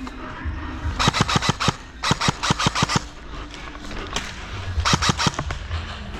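Airsoft rifle firing in three short rapid bursts of sharp clicks, roughly ten shots a second, with a single shot between the second and third bursts.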